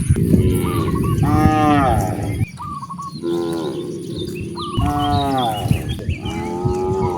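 Cattle mooing: about four long, drawn-out moos one after another, with short bird chirps in between.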